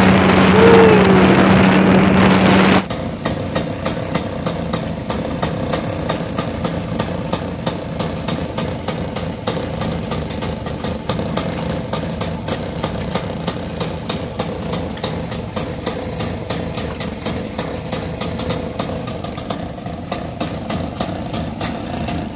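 Speedboat outboard running at speed over open water, with wind on the microphone. About three seconds in it cuts off suddenly, and an outboard motor idles steadily with an even ticking beat.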